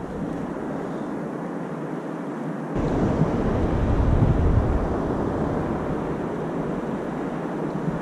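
Wind buffeting the camera microphone over a steady rush of sea water around a kayak. About three seconds in, a gust adds a low rumble and the sound gets louder.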